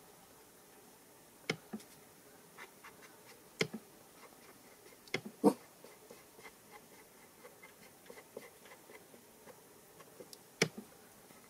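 Ink dauber dabbed and rubbed along the edges of a paper card and against an ink pad: soft scattered taps and scratchy rubbing, with four sharper knocks, the loudest about halfway through.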